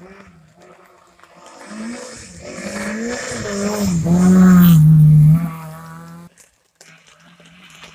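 A hatchback rally car approaches and passes at speed on wet tarmac, its engine revving hard with the pitch rising and dipping through the corner. It is loudest about four to five seconds in, then cuts off abruptly, followed by a fainter engine further away.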